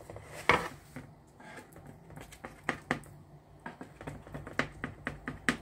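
Knife cutting risen dough on a metal baking tray, the blade knocking against the tray in a run of sharp, irregular clicks and taps, loudest about half a second in.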